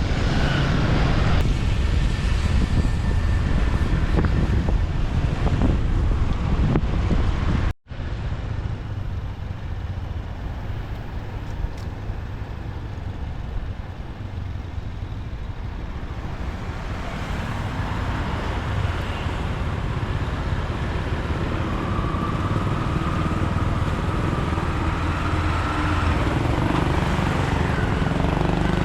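City street traffic heard from a moving motorbike: a steady rumble of engines and road noise. The sound cuts out completely for a moment about eight seconds in.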